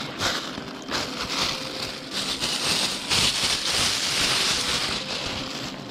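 Thin plastic bag rustling and crinkling as it is handled, an uneven crackling rustle that swells and eases.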